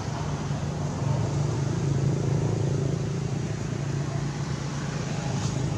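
Steady low engine rumble of a nearby motor vehicle, a little louder from about a second in.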